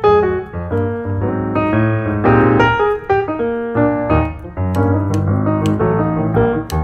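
Background piano music, a run of struck notes and chords at a steady level.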